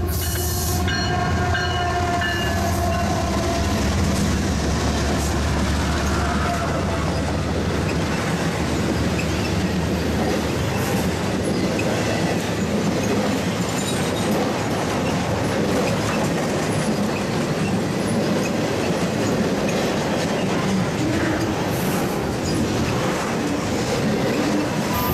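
A CSX freight train passes close by. The GE diesel locomotives go by in the first seconds with steady engine tones that fade. Then the intermodal double-stack and trailer cars roll past with a steady rumble and clatter of steel wheels on the rails.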